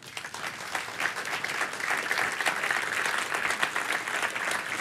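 Audience applauding, swelling over the first second and then going on steadily.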